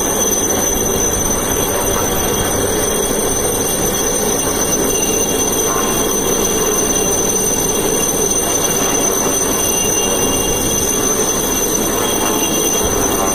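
Helicopter hovering low overhead: a loud, steady rotor and turbine noise with a thin high whine, unchanging throughout.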